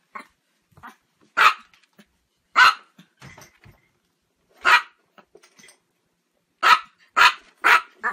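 A chihuahua barking: six sharp, high-pitched barks at uneven intervals, the last three in quick succession near the end, with a couple of fainter yips in the first second.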